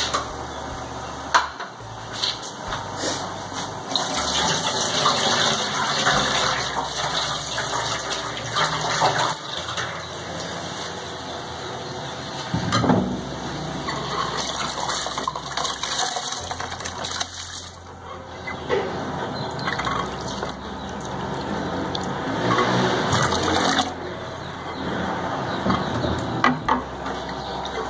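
Pot of water at a rolling boil, bubbling steadily; about halfway through, soaked rice and its soaking water are poured in from a glass bowl with a spatula, with splashing and pouring until near the end.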